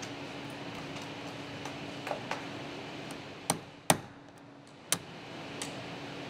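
Hammer tapping a chisel into the corner of a vinyl window frame to work the slide track loose: several sharp, short taps, the loudest about four seconds in.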